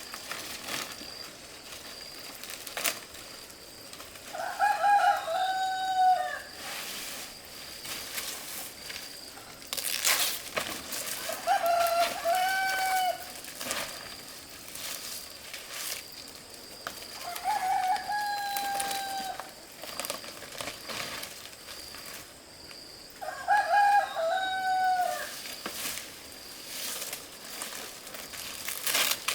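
A rooster crowing four times, about every six seconds, with sharp knocks between the crows.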